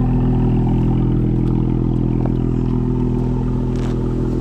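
Car engine idling steadily: an even low hum with no revving.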